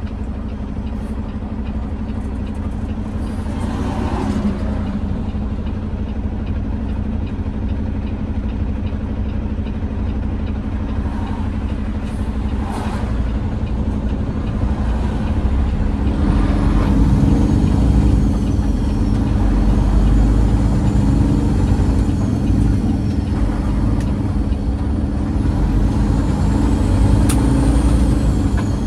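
Peterbilt 389 semi truck's diesel engine running steadily under way, a continuous low drone that gets louder about halfway through, with a faint wavering high whistle above it.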